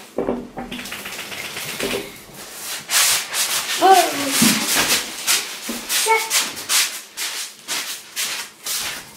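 Irregular rubbing and rustling from things being handled close to the microphone, with a short pitched squeak-like sound about four seconds in and another near six seconds.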